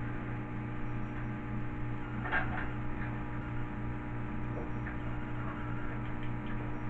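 Steady low hum, with a few faint clicks and rustles of power-supply cables and connectors being handled, the clearest about two and a half seconds in.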